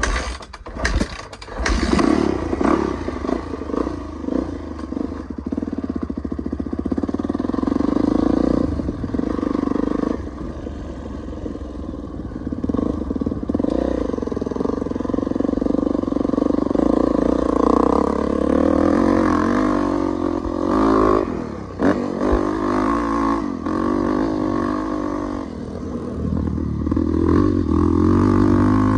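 Dirt bike engine running and being ridden, heard from on the bike, its pitch rising and falling as the throttle is opened and closed. A brief clatter of knocks comes in the first two seconds before the engine settles into the ride.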